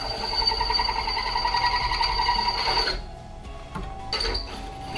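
Benchtop drill press drilling a steel bracket plate, the bit squealing with a high, wavering tone under feed pressure even though it has just been oiled. The squeal stops just under three seconds in and comes back briefly about a second later.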